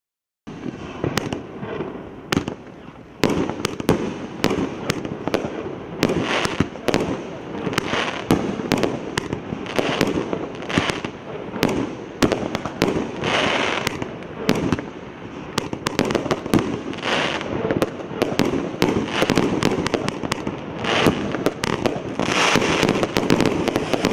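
Multi-shot consumer firework battery (cake) firing continuously: sharp report after report, about one or two a second, over a constant noisy hiss. It begins abruptly about half a second in.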